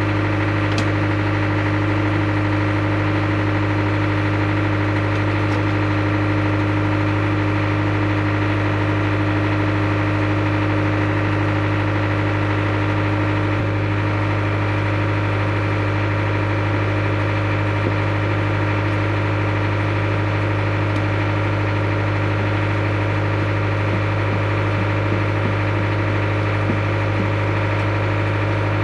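Excavator's diesel engine running steadily at idle, an even drone with a strong low hum that does not rise or fall.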